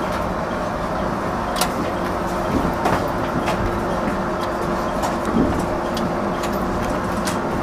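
JR 213 series electric train heard from the driver's cab, rolling slowly along a station platform: a steady low rumble with a faint steady hum, broken by scattered sharp clicks and creaks.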